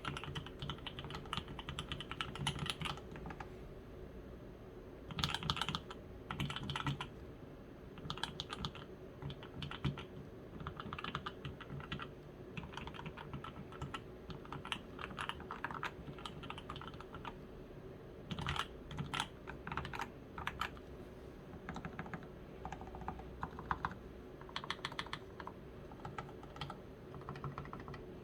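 Typing on a custom Evelyn ergonomic keyboard with lubed H1 switches and an aluminium case: quick runs of keystrokes in short flurries with brief pauses between them.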